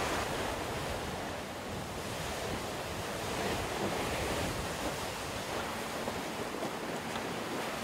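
Sea rushing past the hull of a Volvo Ocean 65 racing yacht sailing fast, a steady wash of water with wind buffeting the microphone.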